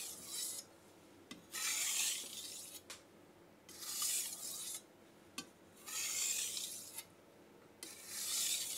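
Steel knife blade stroked over a King S-1 6000 grit waterstone worked up with slurry: a soft rasping hiss in slow, even strokes, one about every two seconds. The light pressure is meant to take off the burr at the end of sharpening.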